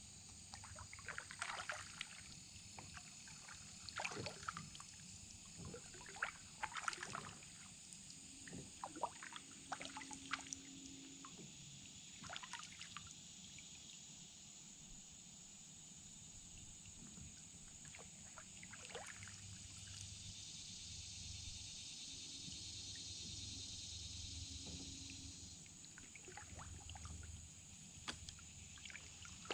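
Kayak paddle dipping into calm lake water: soft splashes and drips every few seconds, fewer in the second half, over a steady high-pitched hum.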